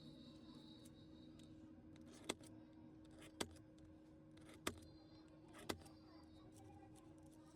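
Four sharp clicks, roughly a second apart, from small hand tools meeting the phone or the workbench, over a steady low hum.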